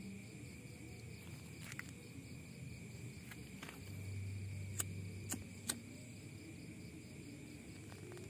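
Crickets trilling steadily in the night, faint, with a few short sharp clicks now and then.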